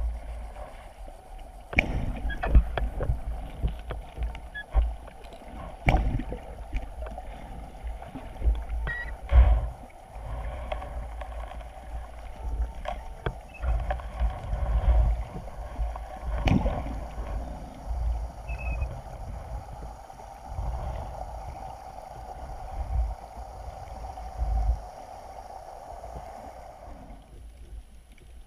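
Muffled underwater thumps and knocks of a hand digging and fanning the sandy bottom, heard through a GoPro's waterproof housing, over a steady hum. The thumps stop a few seconds before the end.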